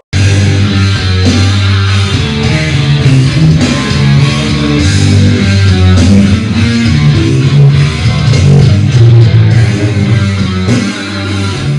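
Rock music with guitars and bass played at full blast through Pyle PA speakers, starting abruptly, as the noise source for a soundproofing test.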